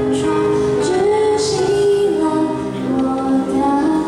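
A young female vocalist sings a slow Mandarin pop ballad into a handheld microphone over accompaniment, holding long notes that glide from one pitch to the next.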